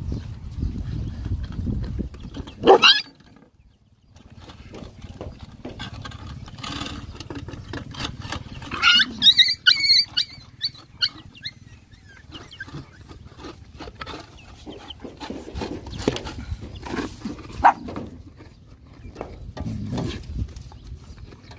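A crowd of dogs and puppies feeding at a shared bowl, with steady low scuffling and eating noise. Dogs growl and yelp as they jostle for the food: one sharp loud cry about three seconds in, a burst of squealing and snarling around nine to ten seconds in, and a short yelp near the end.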